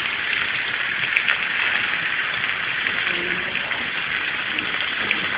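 Salmon fillets sizzling in oil in a sauté pan: a steady frying hiss with small crackles.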